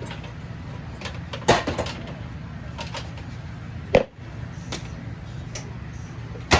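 Kitchen handling sounds as a bowl is fetched: several sharp knocks and clatters of cupboard doors and dishes, the loudest about a second and a half in, around four seconds, and at the very end, over a steady low hum.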